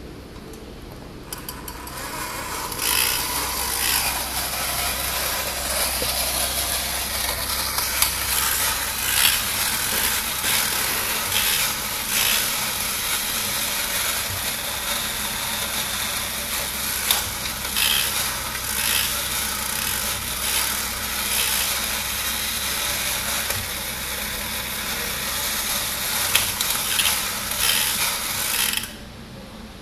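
Vintage Nomura Hy-Que battery-operated monkey toy running: its motor and gear mechanism make a continuous harsh rasping with scattered clicks. It starts a few seconds in and cuts off suddenly near the end.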